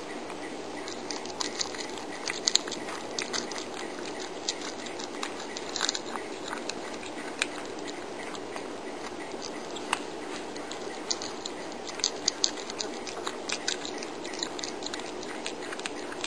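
A cat chewing raw meat: bursts of small, sharp clicking bites, busiest in the first few seconds and again toward the end, over a steady hiss.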